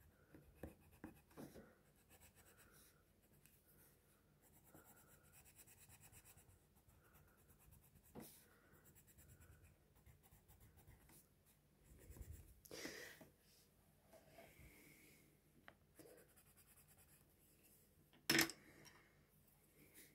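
Faint scratching of a coloured pencil shading on paper in short, uneven strokes, with one sharp knock near the end.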